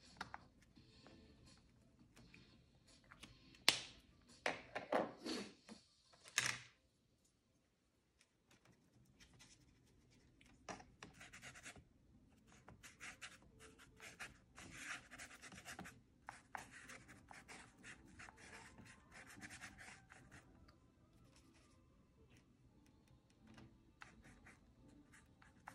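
Paintbrush scrubbing acrylic paint across a sketchbook's paper page: faint, scratchy strokes in quick runs, with a few louder clicks and rubs in the first seconds.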